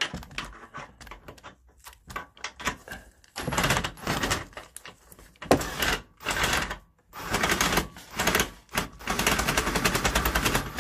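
Ratchet wrench clicking as a bolt is undone: scattered single clicks at first, then short bursts of rapid clicking that run together into an unbroken stretch near the end.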